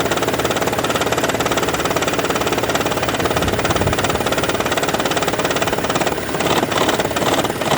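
Toyota Prius petrol engine running at idle while charging the hybrid battery, with a steady, rapid knocking rattle. The knock has persisted despite new coils, plugs and injectors, and its cause is unknown to the owner.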